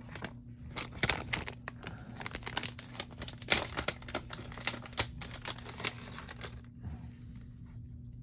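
Irregular small clicks and crinkles of hands handling a Samsung Galaxy A50's plastic housing and small parts, loudest about three and a half seconds in, over a low steady hum.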